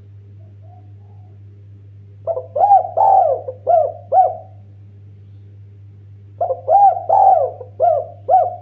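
Spotted dove cooing: two phrases of about five short coos each, a few seconds apart, over a steady low hum.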